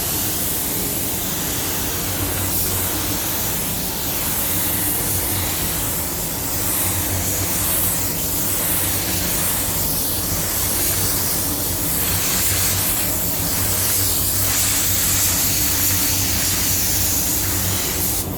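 Compressed-air paint spray gun hissing as it lays down a coat of base coat, the hiss swelling and easing slightly across the passes, over a steady low hum.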